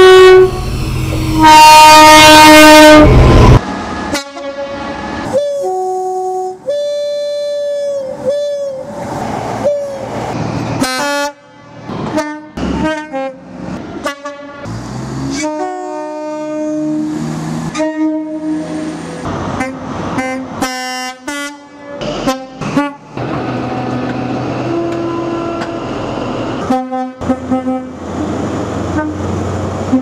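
A string of British train horns, mostly two-tone horns stepping between a high and a low note, from a freight diesel locomotive and HST power cars, cut one after another with train running noise between them. The loudest horn sounds close by in the first few seconds.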